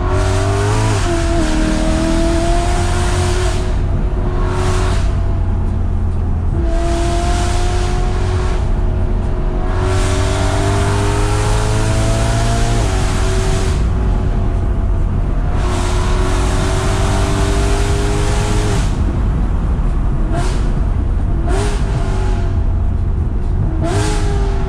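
BMW E92 M3's 4.0-litre V8, heard from inside the cabin, pulling up through the revs in second and third gear and falling back as the throttle lifts for the bends, several times over. Near the end the revs rise sharply in short bursts.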